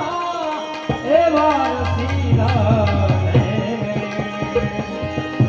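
Indian devotional bhajan music: a melodic vocal line that slides and bends over the first few seconds, with hand-drum strokes and jingling small cymbals keeping the rhythm.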